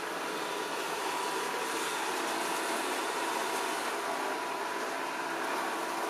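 Yeedi Mop Station Pro robot vacuum running in its Quiet suction mode: a steady hiss of the suction fan with a faint steady tone.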